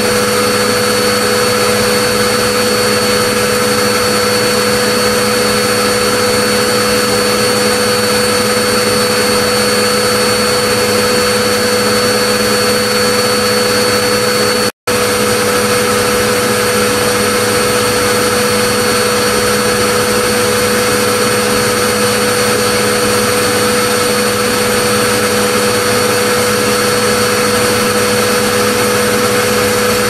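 Vacuum cleaner running continuously: a loud, even whoosh with a steady motor whine. The sound cuts out for an instant about halfway through.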